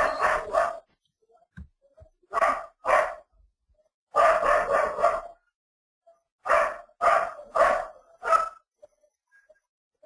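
A dog barking repeatedly in short runs of barks with pauses between them.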